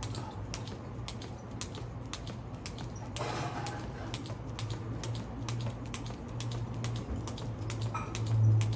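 Jump rope slapping the concrete in even clicks, about three a second, over a steady low hum. A brief rush of noise comes about three seconds in.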